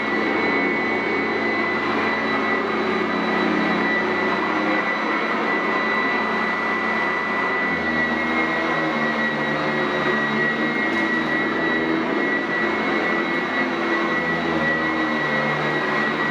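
Sanitaire SC899F commercial upright vacuum running on carpet: a steady rush of air with a high motor whine, its low hum shifting in pitch about halfway through.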